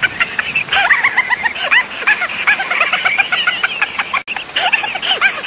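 Many birds chirping at once, with a dense stream of short overlapping chirps and a brief gap about four seconds in.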